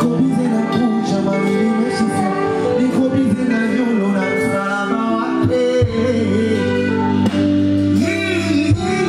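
Live band music with a singer over guitar and a deep bass line, run through the PA.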